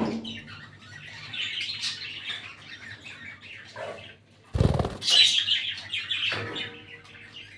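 Budgerigars chirping and chattering in short scratchy bursts, with a loud flurry of wing flapping past the middle.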